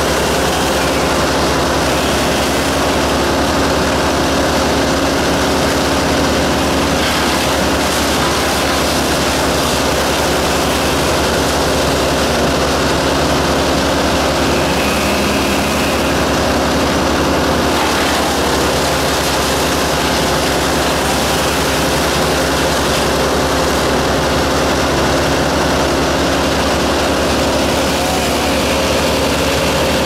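A heavy engine running steadily at a constant speed: a continuous, even drone with no revving.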